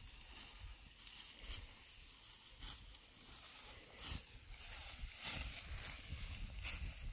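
Dry rustling and swishing over a steady high hiss, with a handful of sharper swishes roughly a second apart and a low rumble underneath.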